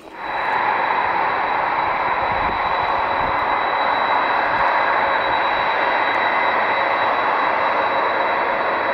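Four jet engines of a Boeing 747-400F freighter at high power as it rolls along a wet runway: a loud, steady rush with a thin high whine over it, cutting in abruptly at the start.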